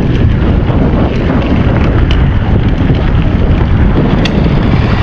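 Wind buffeting an action camera's microphone while riding a mountain bike over a gravel dirt road, with tyre and gravel rumble and a few sharp ticks of stones.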